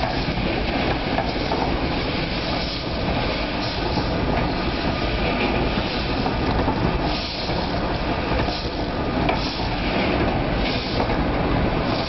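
Drum of a black sesame roasting machine running while roasted black sesame pours out of its mouth into a cardboard box. The sound is a steady rumble with a dense rattling hiss of seeds.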